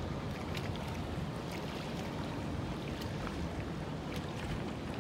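Steady low rumble of a cabin cruiser motoring past on the river, its engine and wake blending into one noise. Wind on the microphone and faint lapping of water mix in.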